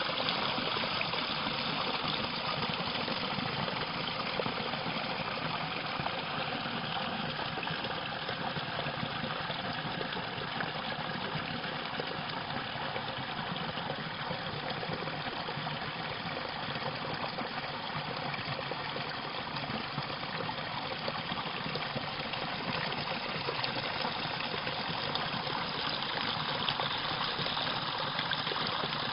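Water rushing and splashing steadily down a small cascade in a stream.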